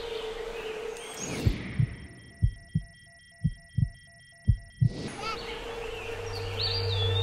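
Heartbeat sound effect: four double thumps, lub-dub, about one a second, over a steady hum. A low drone builds near the end.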